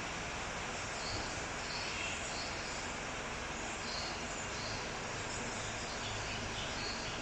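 Caged breeding birds giving scattered short, high chirps over a steady hiss.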